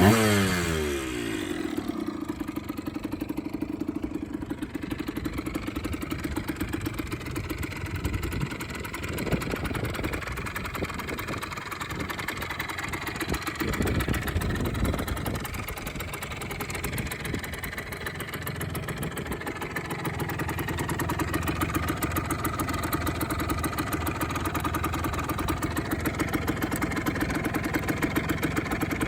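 1995 Yamaha DT 80 LC II's 80cc single-cylinder two-stroke engine, breathing through its original resonator and a modified Giannelli silencer. It drops back from revving to a steady idle in the first second, takes a few short blips of throttle around the middle, and then idles on.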